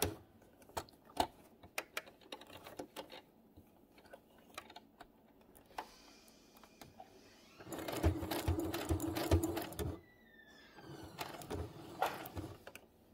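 Domestic electric sewing machine stitching Velcro onto fabric in one short run of about two seconds, a little over halfway through. Before and after it come scattered light clicks and taps as the fabric is adjusted under the presser foot.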